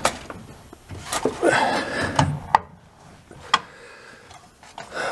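Metal clicks and scraping as the spring-wire bail clip is levered over the valve cover of a 1964 VW Beetle's air-cooled 1500cc engine, with sharp clicks just after the start, at about two and a half seconds and at about three and a half seconds.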